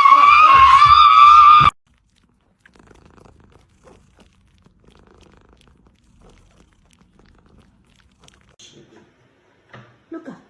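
A cat's long, loud meow on one steady pitch that cuts off abruptly about a second and a half in. Faint small rustles follow, then a short cry falling in pitch near the end.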